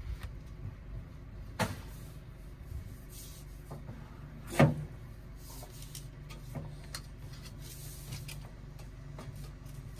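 Heavy rapid-charger cable and connector being handled and knocking against the charger and its steel guard rail: a few clunks, a sharp one about a second and a half in and the loudest about four and a half seconds in.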